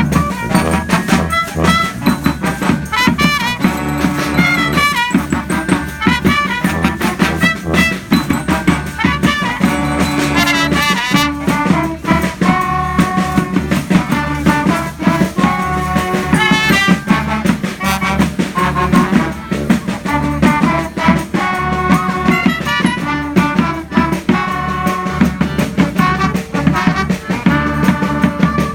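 Street band playing live: brass horns over a steady drum beat.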